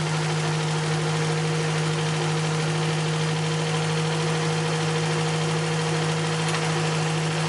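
Toyota Corolla AE70's 4A-GE four-cylinder engine running at a steady speed, a constant hum with hiss above it.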